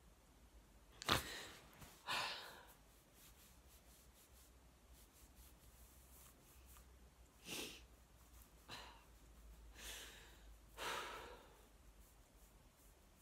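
A man's sighs and heavy breaths out, about five of them spread across the stretch, the sounds of someone deeply moved. A sharp tap or click sounds about a second in.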